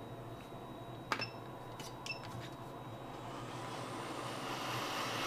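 A few light clicks with short beeps, then a hot-air rework station's airflow hissing, growing louder over the last two seconds as it starts heating the chip for removal.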